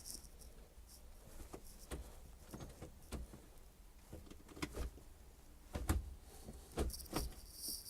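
Faint, scattered clicks and knocks from handling things, with a few louder knocks about six and seven seconds in.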